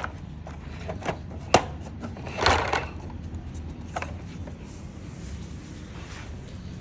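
Handling noise from a plastic toy school bus: a few light clicks and knocks, the sharpest about a second and a half in and a short scuffle about a second later, then mostly quiet room tone.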